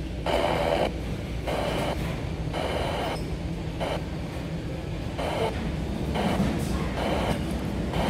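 Timex T618T clock radio's speaker hissing with FM static as it is tuned step by step between stations. The noise changes abruptly about once a second, with each press of the tuning button.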